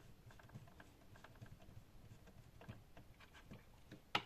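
Faint, scattered small clicks and taps of laptop parts being handled on a motherboard, with one sharper click near the end.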